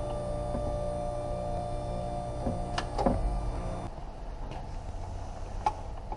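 Steady mechanical hum in a repair shop that drops away about four seconds in, with a few light knocks and clicks as a mechanic handles parts and tools under a car.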